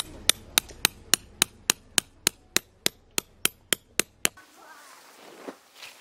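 Steel tent peg being hammered into gravel ground with a metal peg hammer: a quick, even run of about sixteen sharp strikes, roughly three and a half a second, that stops about four seconds in.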